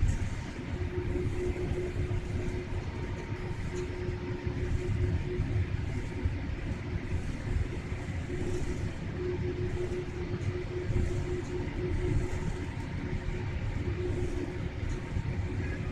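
Cabin noise of a Boeing 787 Dreamliner taxiing after landing: a steady low rumble with a faint hum that comes and goes.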